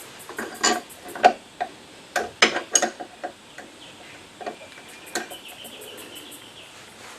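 Irregular metallic clinks and knocks of hand tools and steel parts being handled while working under a car's rear suspension, busiest in the first three seconds, then a few scattered taps.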